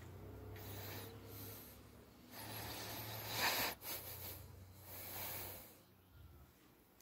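A small puppy snorting and snuffling in three breathy bursts while tugging at a toy, the middle burst the loudest.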